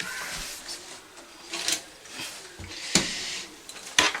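Knocks, clicks and rubbing from handling a desktop computer and its cables, four sharp knocks about a second apart with scraping between.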